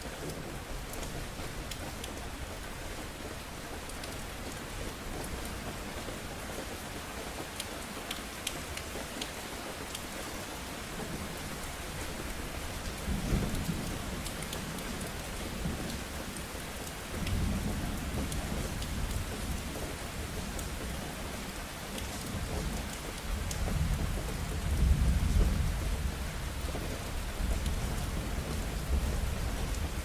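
Steady rain falling, with low rolls of thunder starting a little before halfway and coming longer and louder through the second half, the strongest near the end.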